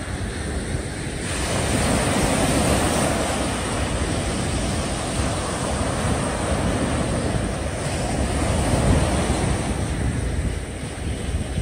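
Small waves breaking and washing up a sandy beach, with wind buffeting the microphone. The surf swells about a second in, and the sound cuts off suddenly at the end.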